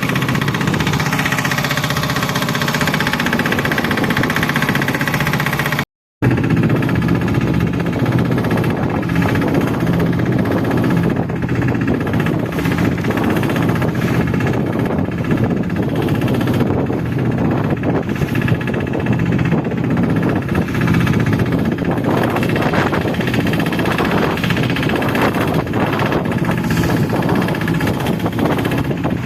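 Engine running steadily with a continuous drone, cut off briefly by a sudden gap about six seconds in.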